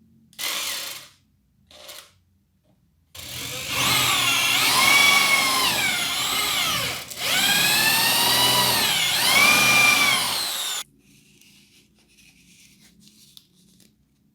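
Electric drill squeezed on twice in short bursts, then run for about eight seconds with a brief break partway. Its whine rises and falls in pitch as the speed changes.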